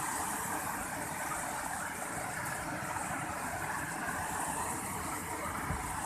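Steady rushing of white water cascading over the rock steps of a waterfall close by.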